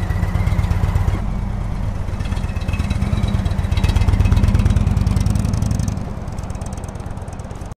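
Indian Chief Vintage's Thunder Stroke 111 air-cooled V-twin running, then pulling away; it grows louder as the bike passes close about four seconds in and fades as it rides off.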